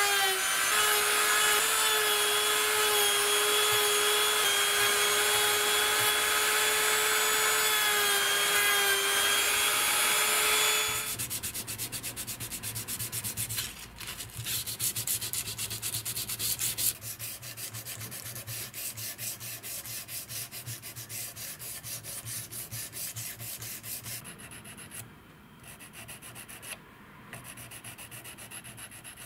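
A handheld rotary tool with a sanding drum whining at a nearly steady pitch as it sands a wooden knife handle, stopping about eleven seconds in. Then quick, rhythmic hand-sanding strokes of abrasive on the wood, growing quieter toward the end.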